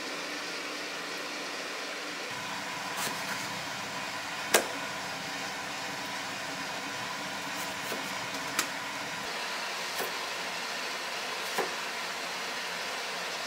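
Kitchen knife cutting through a persimmon and knocking down onto a wooden cutting board, a sharp tap about every one to one and a half seconds, over a steady background hiss.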